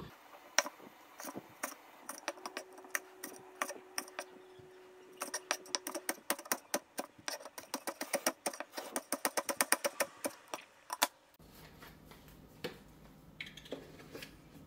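Cleaver chopping chilis on a plastic cutting board: a run of sharp knocks, sparse at first, then quicker at about four a second, stopping suddenly about eleven seconds in. After that, a low steady hum with a few light knocks.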